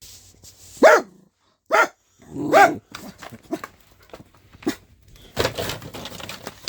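Pet dog barking: three loud barks in the first three seconds, then a couple of fainter ones, and a stretch of rustling noise near the end.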